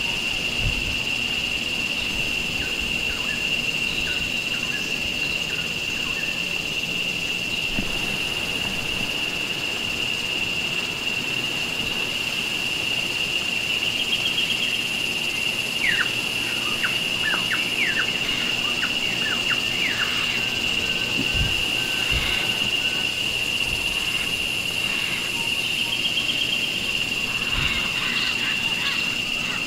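Forest ambience: a steady, high-pitched insect drone, with short bird chirps and calls over it, a quick run of them about midway and more near the end.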